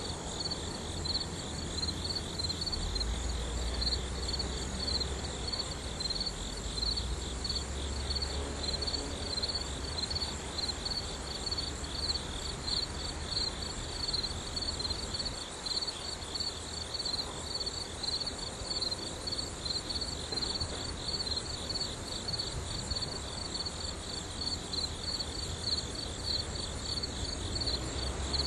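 Crickets chirping steadily in fast, even pulse trains, with a faint low rumble underneath.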